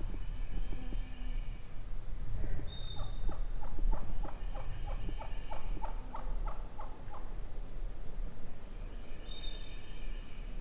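A run of about a dozen quick turkey yelps, around three a second, with a songbird singing a high series of stepped, descending whistled notes twice.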